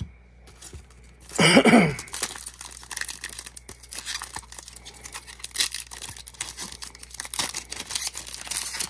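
A baseball card pack wrapper being torn open and crinkled by hand: a dense run of crackling and small snaps. A short vocal sound comes about a second and a half in.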